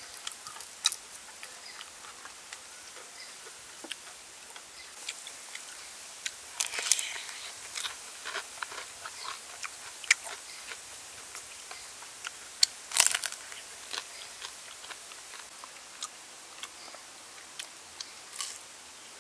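Crunchy bites and chewing of deep-fried battered shrimp and chicken: scattered sharp crunches, with two louder bouts of crunching, one about seven seconds in and one about thirteen seconds in.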